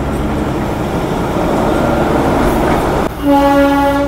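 Darjeeling Himalayan Railway narrow-gauge toy train running along the track with a steady rumble. About three seconds in, the locomotive's horn sounds one steady blast of about a second.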